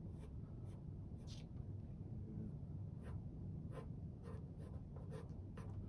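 Graphite pencil sketching on paper: a series of short, light scratchy strokes at irregular intervals as a rough outline is drawn.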